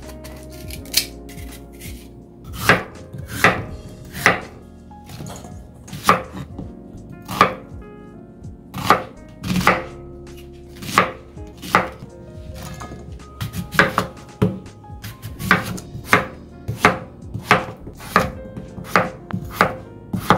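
Kitchen knife chopping vegetables on a cutting board: single sharp strokes at an uneven pace, roughly one a second.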